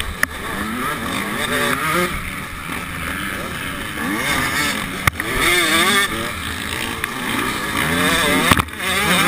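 KTM SX125 two-stroke single-cylinder engine revving up and down repeatedly while racing through dirt bends, with a few sharp knocks.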